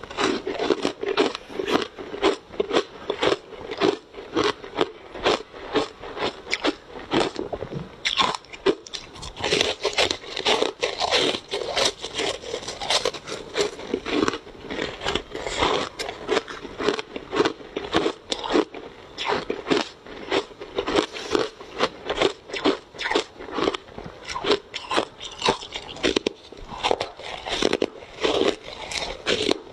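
A person biting and chewing ice, with a steady run of loud, crisp crunches as the ice cracks between the teeth.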